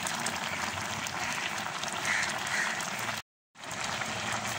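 Pot of pigeon peas in thin coconut milk boiling hard, a steady bubbling hiss as the liquid cooks down. It cuts out for a moment a little over three seconds in.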